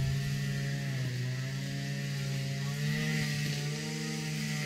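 Strimmer (string trimmer) engine running steadily, its pitch dipping and rising a little now and then.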